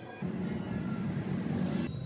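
A low, engine-like rumble, a vehicle sound effect laid over background music. A hiss builds above it and cuts off suddenly near the end.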